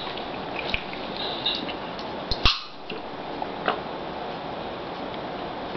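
Quiet room tone: a steady low hiss with a few light clicks, the sharpest about two and a half seconds in.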